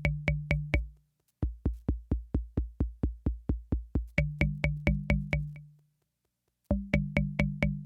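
Univox drum machine playing a fast, even pattern of thumps with a bright click on each beat, about five beats a second, with a low hum under some of them. The pattern stops about a second in, starts again half a second later, dies away near six seconds and starts once more near the end.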